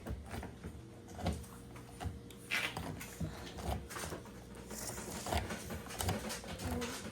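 Irregular handling noises: scattered small knocks, taps and scrapes, with a couple of brief rustling swishes about two and a half and five seconds in.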